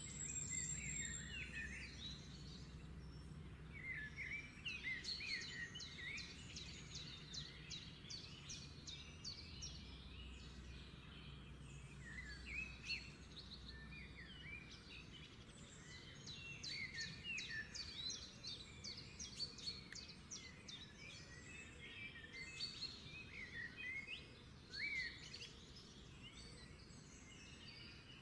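Small birds chirping and twittering in quick clusters throughout, over a faint low hum.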